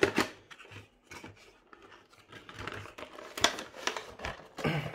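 Action-figure box packaging being handled and opened: irregular rustling, scraping and sharp clicks of plastic and cardboard, with a louder crackle about three and a half seconds in.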